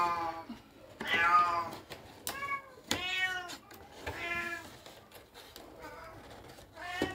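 Domestic cat meowing over and over, about one short, arching meow a second.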